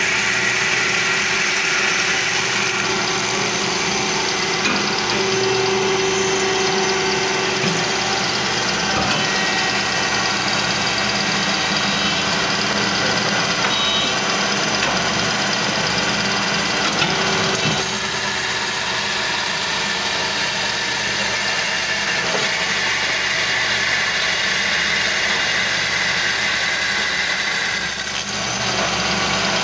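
Spartan PA 13/2 automatic horizontal bandsaw running under power: a steady machine hum with a faint higher whine above it.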